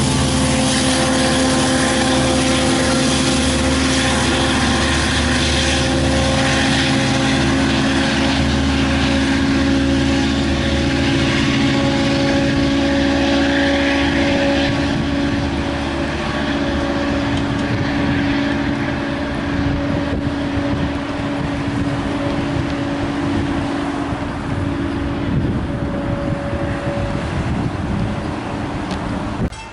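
LIRR DM30AC diesel locomotive running, a steady engine drone with several fixed tones over the rumble of the moving train. It grows somewhat quieter about halfway through as the train moves off.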